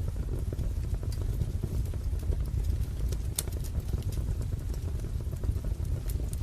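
Wood fire crackling in a fireplace: a steady low rumble of burning logs with scattered sharp snaps and pops, one stronger pop about three and a half seconds in.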